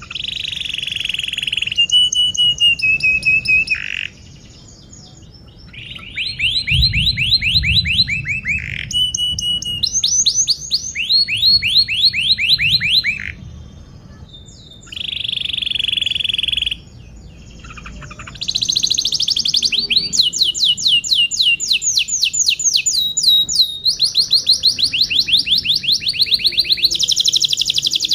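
Domestic canary singing a long song of fast trills, each phrase a rapid run of repeated chirping notes, with a few short pauses between phrases.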